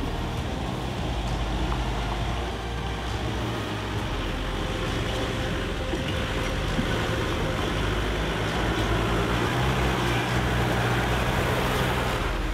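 Land Rover off-roader driving, its engine running steadily under the noise of the drive, getting a little louder in the second half.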